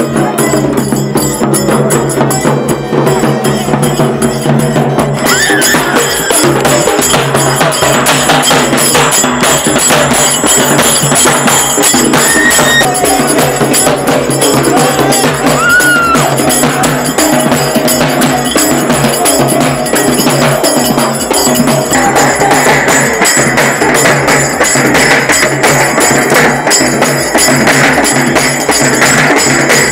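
Loud festive Telugu folk music driven by dense, fast drumming, running on without a break.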